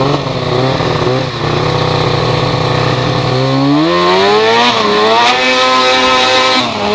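Snowmobile engine running steadily, then revving up hard about three seconds in, its pitch climbing and holding high as the sled accelerates off the beach onto the water. The revs dip briefly near the end.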